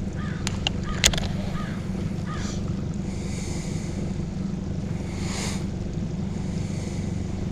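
A boat motor running steadily with a low, even hum, with a few sharp clicks about a second in.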